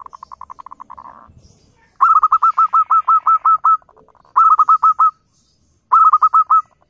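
Zebra dove (perkutut) calling. A fainter quick trill comes first, then three loud runs of short, clipped, hooked notes: about a dozen in the first run, then two shorter runs of five or six.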